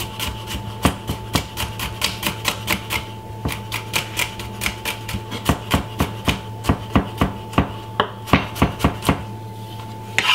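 Kitchen knife chopping garlic cloves on a wooden cutting board: quick, uneven strikes, about three or four a second.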